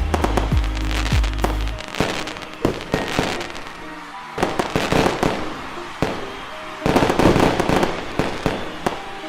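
Fireworks going off: rapid bangs and dense crackling, heaviest about five and seven seconds in. Music plays underneath, with a deep bass note that stops about two seconds in.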